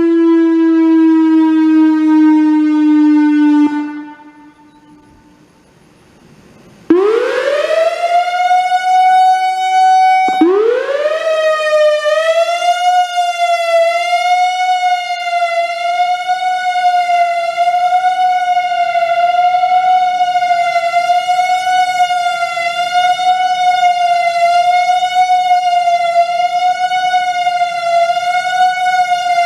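Whelen WPS-3000 electronic outdoor warning siren changing signals during a test. A steady, slowly falling tone cuts off abruptly, and after about three seconds of quiet a higher tone sweeps up twice and then holds steady with a slight slow waver in pitch.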